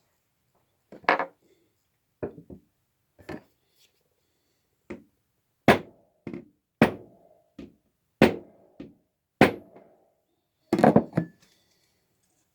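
Hammer tapping a metal fret wire into its slot in a wooden guitar fretboard: about a dozen sharp taps at an uneven pace, some with a short ring.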